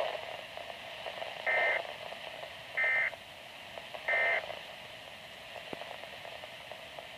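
Three short warbling data bursts from a Weatheradio Canada receiver, each about a third of a second long and a second apart, over steady radio hiss: SAME digital alert code, short enough to be the end-of-message signal of a weather alert.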